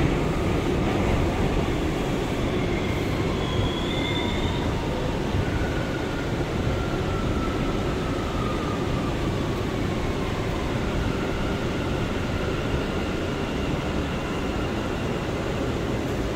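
Interior rumble of an R179 subway car as the train slows into a station and comes to a stop, steady and even, with faint high whines from the running gear drifting slowly down in pitch.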